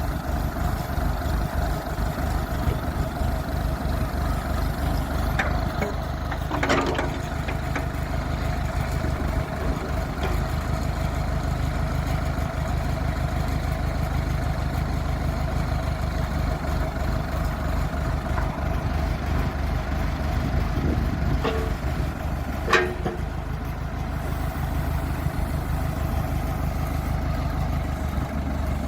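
Massey Ferguson 275's Perkins four-cylinder diesel running steadily at little more than idle while powering the backhoe, a sign it is running smoothly. Two short sharp noises stand out, about 7 seconds in and near 23 seconds.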